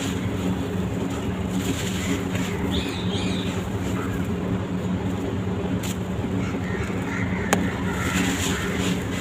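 Dry sand-cement block crumbling and crunching, with a few sharp cracks, over a steady low hum.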